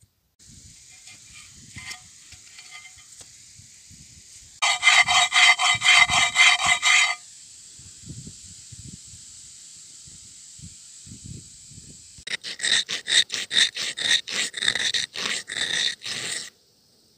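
A wooden arrow shaft rubbed quickly back and forth in a groove worn into a soft, sandy stone, making a grinding rasp, about four strokes a second. The strokes come in two bursts, the second one longer, over a faint steady high hiss.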